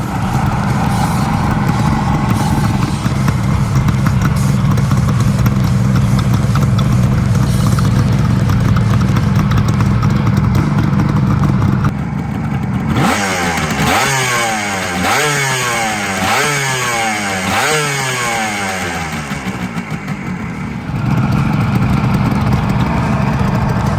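1973 Suzuki GT380's air-cooled two-stroke three-cylinder engine, freshly overhauled, idling steadily, then revved in about five quick blips partway through before settling back to idle.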